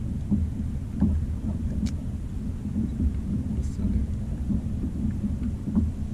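Low, steady rumbling of wind and water around a fishing kayak at sea, with a few faint clicks.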